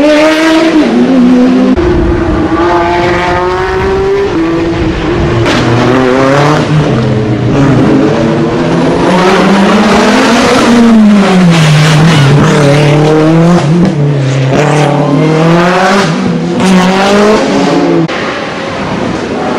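Race car engines revving hard on a hillclimb, pitch climbing repeatedly and dropping at each gear change, falling away about halfway through and then climbing again.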